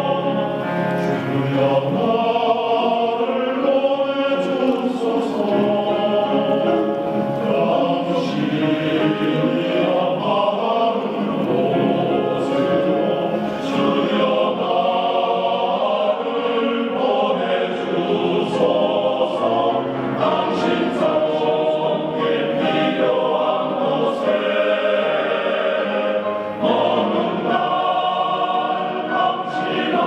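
Background music: a choir singing in sustained lines.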